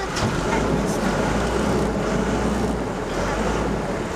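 Passenger boat's engine running with a steady low hum, water washing around the hull and wind on the microphone.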